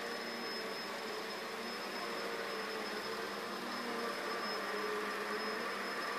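Steady background hiss and hum with a thin, constant high-pitched whine and no distinct events.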